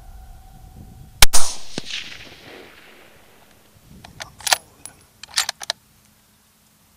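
A single hunting rifle shot, very loud and sharp, with its echo rolling away over about two seconds; it drops a roe buck. A few seconds later comes a quick run of sharp metallic clicks as the rifle is handled.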